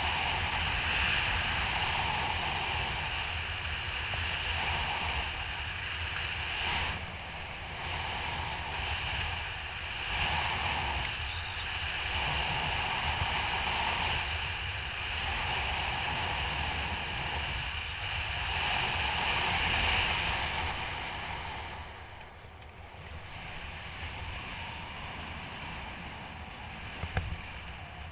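Wind rushing and buffeting over the camera's microphone as a skydiver descends under an open parachute canopy. The noise surges and eases in waves and quietens somewhat about three-quarters of the way through, with a few small knocks near the end.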